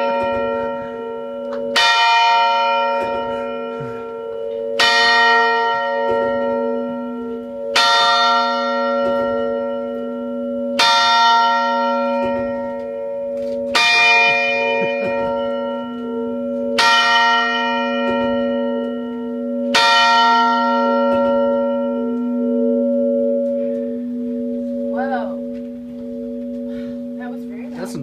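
An 800-pound 1891 courthouse clock bell tolling the hour, struck by a solenoid-pulled hammer: seven strokes about three seconds apart. Each stroke is followed by a long ringing hum that carries on and slowly fades after the last one.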